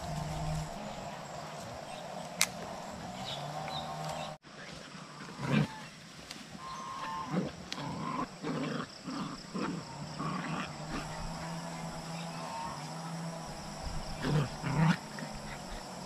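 Farm animals calling: a string of short, low calls from about five seconds in, over a steady low hum.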